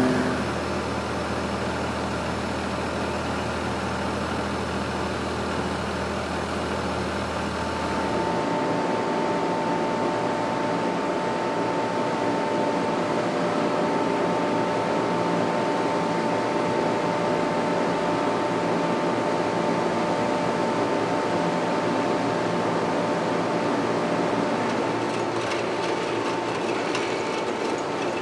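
Steady drone of a heavy diesel engine running, with an abrupt change in its sound about eight seconds in.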